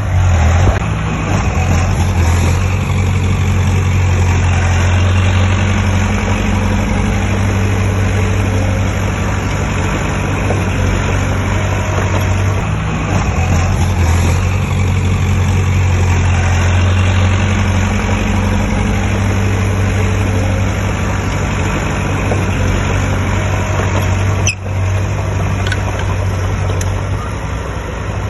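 Heavy diesel engine of earthmoving machinery running steadily. Its low note swells louder twice, about two seconds in and again around the middle, as if under load. There is a brief sharp click near the end.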